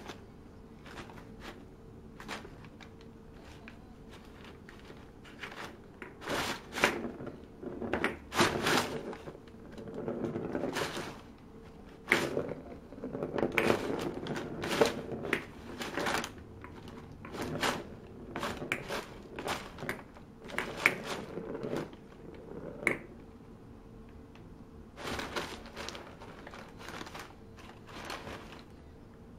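Crumpled brown wrapping paper crinkling and rustling in a cardboard box as a cat paws and burrows through it, in irregular bursts with short quiet pauses.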